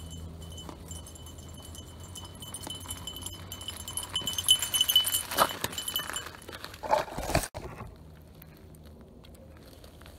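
Mountain bike rolling slowly over a gravel trail, with metallic rattling and clinking that grows louder partway through and cuts off sharply about three-quarters of the way in as the bike comes to a stop.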